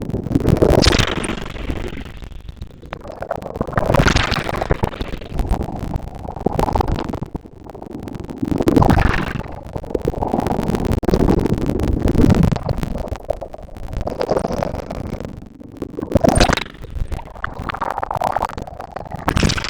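Ocean waves breaking and washing up a beach, swelling and falling every few seconds, with sharper crashes about a second in, around four seconds, around nine seconds and around sixteen seconds, over a low rumble.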